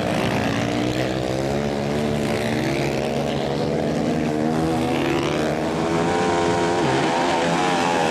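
Dirt-track racing motorcycle engines running hard, several at once, their pitch rising and falling as the riders work the throttle.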